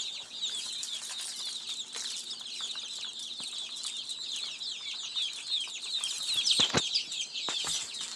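A crowd of baby poultry peeping constantly, many high, short chirps overlapping, with a few sharp knocks about two-thirds of the way through.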